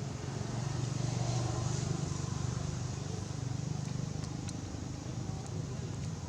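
A motor vehicle's engine running, a low steady hum that grows louder about a second in and eases off after about three seconds.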